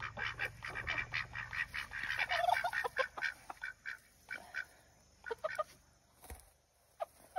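Ducks quacking: a quick run of short calls, then scattered calls that thin out after about three seconds.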